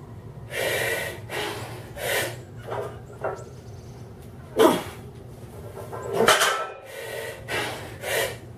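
A lifter breathing hard and loudly between and through heavy barbell deadlift reps: a string of forceful, hissing breaths about half a second each, with a sharp, falling grunt near the middle.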